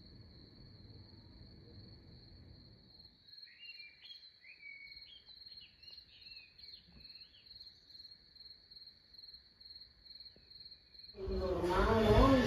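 Crickets chirping in a steady, pulsing high trill, faint, with a bird twittering in short rising and falling phrases from about four seconds in. Near the end, it breaks into loud voices talking.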